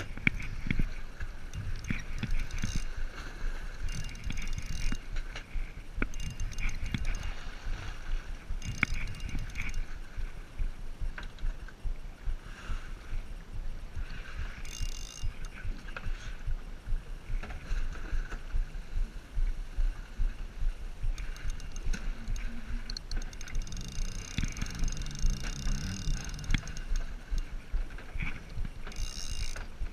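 Wind buffeting the microphone and water slapping against a drifting small boat's hull, with the faint gear whir and clicks of a spinning reel being cranked.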